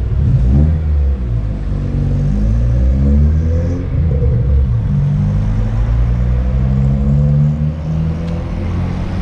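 Car engines passing close by in street traffic, their pitch rising and falling as they accelerate and change speed.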